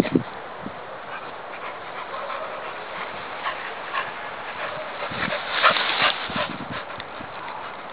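Rustling and crackling of dense thistly undergrowth as a pit bull-type dog pushes through it, with a busier run of crackles about five to six seconds in.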